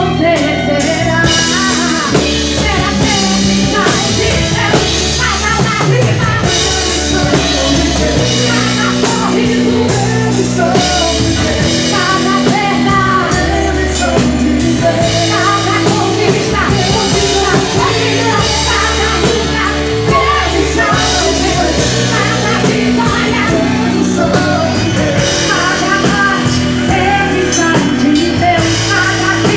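A live gospel band playing a song with a lead singer over a drum kit and a steady beat.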